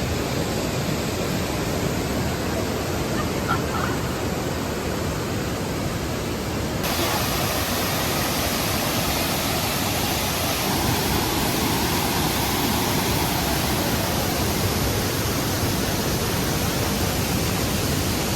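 Steady rushing of a waterfall. About seven seconds in the sound changes abruptly and turns hissier.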